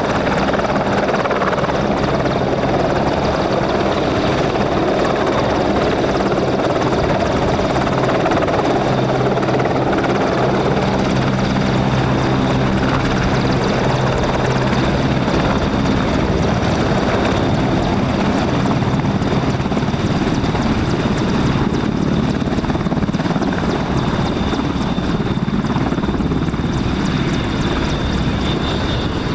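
Royal Navy AgustaWestland Merlin helicopter, with three turboshaft engines, hovering low and touching down. Its rotors beat steadily over a high, even turbine whine, and the sound eases a little once it is on the ground in the second half.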